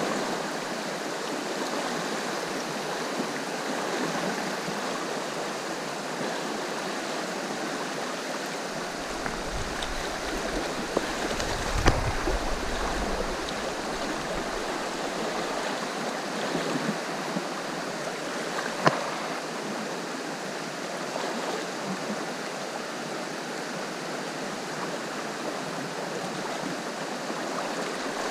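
Steady rush of river water running over stones. Two sharp knocks come around the middle, and a brief low rumble comes just before the first of them.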